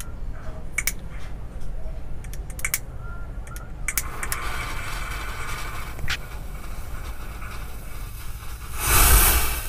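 A lighter clicked a few times, then loose firecracker powder from a sutli bomb catching about four seconds in and burning off with a fizzing hiss for a few seconds. Near the end, a brief loud rush of noise.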